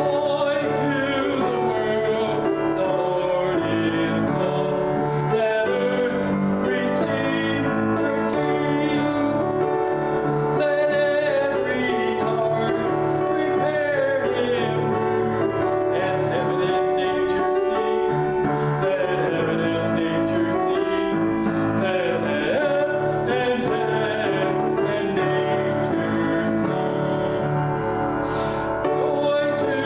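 A man singing a worship song with instrumental accompaniment, his voice wavering with vibrato over held keyboard chords.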